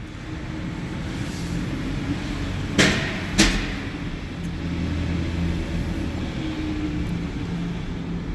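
2015 Hyundai Genesis Coupe's 3.8-litre V6 running steadily in first gear as the car creeps along without braking. Two sharp knocks about half a second apart come roughly three seconds in.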